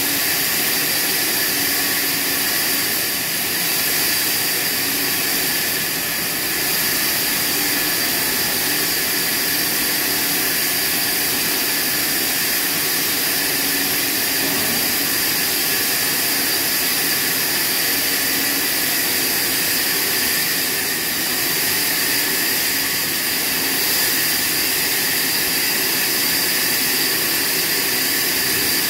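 Horizontal band sawmill running steadily as its blade saws through a large padauk log. It makes a continuous high-pitched hiss with several steady whining tones.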